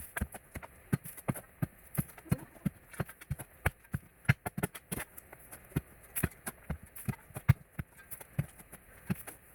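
A quick, irregular run of sharp knocks and taps, several a second.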